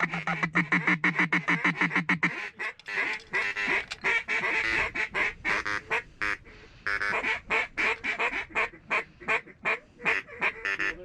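Duck quacking: a steady, rapid run of quacks for about two seconds, then a faster, higher chatter of short quacks that goes on with a brief lull partway through.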